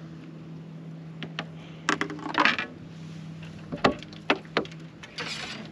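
Scattered sharp clicks, clinks and knocks of gear being handled on a bass boat, several in the second half, with two short rattling scrapes, over a steady low hum.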